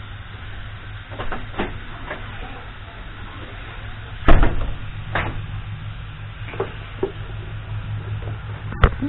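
Irregularly spaced knocks and clicks, the loudest about four seconds in and another just before the end, over a steady low hum.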